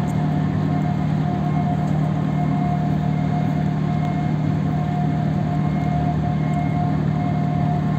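Steady, unchanging drone of heavy marine engines or machinery, with a constant hum at a few fixed pitches.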